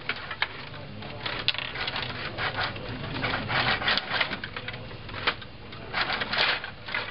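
Stiga rod table hockey game in fast play: quick, irregular clacking and rattling as the metal control rods are pushed, pulled and spun to swing the plastic players at the puck. There are several busier flurries of clatter, one in the middle and one near the end.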